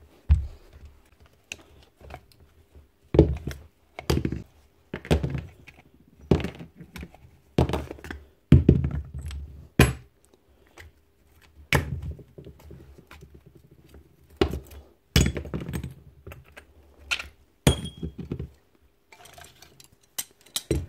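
Irregular knocks and clunks, about one a second, as the metal barrel, piston and striker parts of a Milwaukee K500 ST demolition hammer are handled and set down on a workbench during disassembly.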